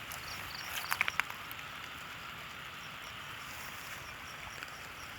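Insects chirping: a steady high hiss with a small high chirp repeating evenly, a few times a second. A few sharp clicks sound about a second in.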